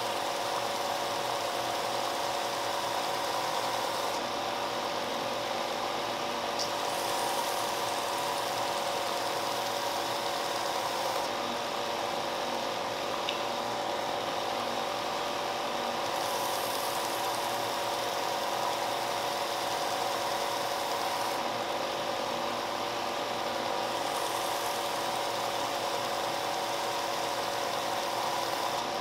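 Shop Fox benchtop belt-and-disc sander running steadily with a constant motor hum. Four times, for several seconds at a time, a wooden coaster is pressed to the belt and a rasping sanding noise rises over the hum; between these spells the machine runs on its own.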